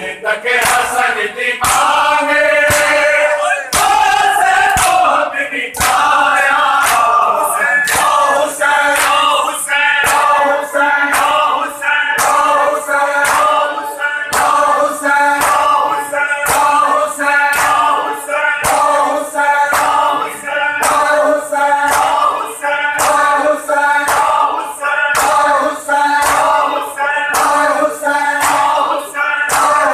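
Shia matam: a group of men chanting a mourning lament in unison while striking their bare chests together in time. The sharp slaps come about once a second.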